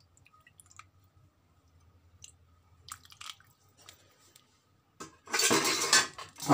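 A metal ladle clinks softly a few times against metal pots of fish curry. Near the end a loud, noisy rush comes in and drowns everything else.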